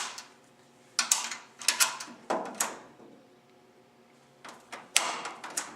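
Coin-operated restroom vending machine being worked by hand: clusters of sharp mechanical clacks and rattles from its dispensing mechanism about a second in, then again near the end.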